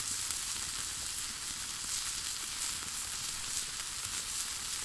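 Wood campfire burning under a grill grate with food sizzling on it: a steady hiss with faint, scattered crackles.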